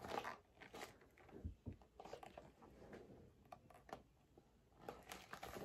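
Near silence with faint, scattered rustles and light taps from a hardcover picture book being held up and handled.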